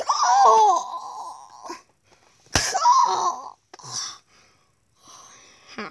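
A child's voice making two scratchy, hissing screeches about two and a half seconds apart, each starting with a sharp burst and lasting about a second, then a short third one.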